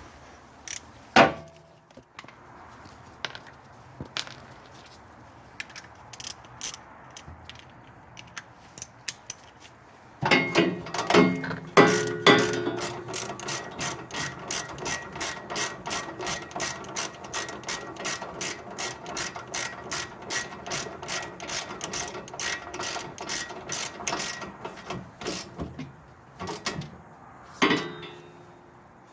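Hand ratchet wrench clicking: a sharp knock about a second in and a few scattered clicks, then from about ten seconds in a long, even run of ratchet clicks, about three a second, before another knock or two near the end.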